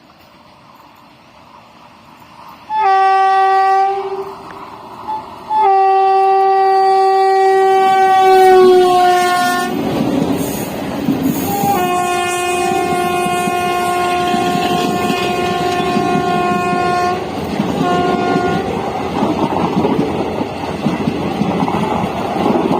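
Indian Railways locomotive horn sounding in several blasts as a train approaches at speed: a blast about three seconds in, a short toot, then a long blast whose pitch sags slightly as the locomotive passes. The loud rush and clatter of the passing coaches follows, with a long horn blast and a short one over it.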